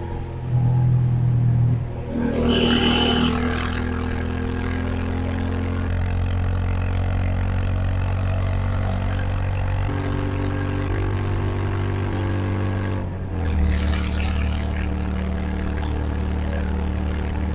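Honda H'ness CB350's single-cylinder engine running on the move, its note stepping down several times as the bike shifts and slows, settling into a deeper, steady note for the last few seconds. A brief high-pitched tone sounds about two to three seconds in.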